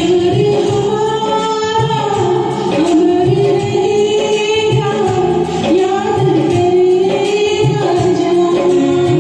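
Hindi film-song karaoke music: a steady beat under long held, gently wavering melody notes, between sung lines.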